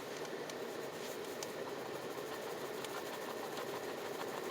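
Scratch-off lottery ticket being scratched to uncover numbers, a steady rapid scraping with a few faint ticks.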